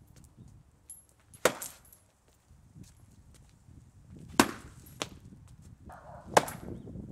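Hard blows struck against a painted panel: three sharp chopping impacts a few seconds apart, with lighter knocks between them and a short scrape just before the last blow.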